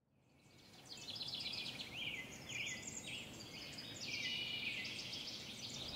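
Birds chirping and singing in a dense chorus of short overlapping calls and trills, fading in from silence over the first second, over a steady low background noise.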